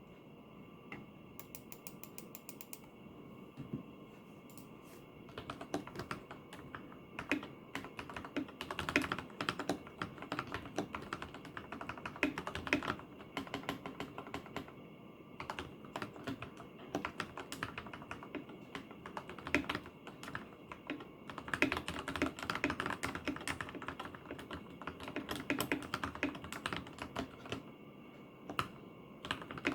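Akko 3087 mechanical keyboard with lubed Gateron KS3 Yellow linear switches and an EVA-foam-dampened case being typed on. A few scattered keystrokes come first, then fast, continuous typing in bursts with short pauses.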